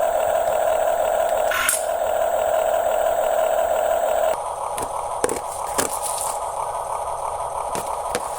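Small electric motors of a radio-controlled construction model whining steadily. The whine changes to a higher, harsher pitch about four seconds in, with a few sharp clicks and scrapes after that.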